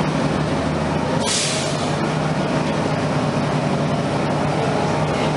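Inside a NABI 31LFW transit bus, the Cummins-Westport ISL-G natural-gas engine and the HVAC run steadily. About a second in, a short hiss of compressed air lets off, lasting under a second.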